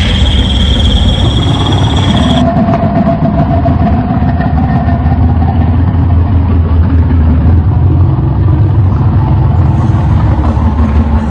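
Reconstructed Tyrannosaurus rex growl, a designed sound effect: a long, loud, deep rumbling growl, with a high thin tone layered over it that cuts off after about two and a half seconds.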